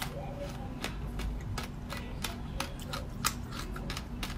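Close-up eating sounds of soft jelly being pulled from a tube with the fingers, sucked in and chewed: irregular sharp wet clicks and squishes, several a second.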